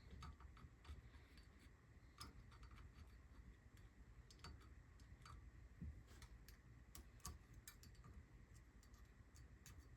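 Faint, irregular light metallic clicks and ticks as small valve keepers and a magnetic screwdriver are worked into a compressed valve spring retainer on a cylinder head.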